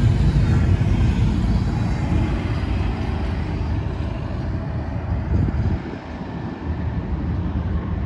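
CSX double-stack intermodal container train rolling along the track, a steady low rumble of its wheels and cars on the rails that slowly fades as the end of the train moves away.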